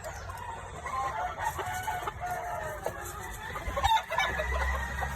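Chickens clucking, with a rooster crowing among them.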